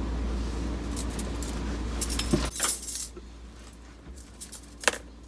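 Small hard objects clinking and rattling in a short cluster. A steady low hum stops about halfway through, and a few separate clicks follow near the end.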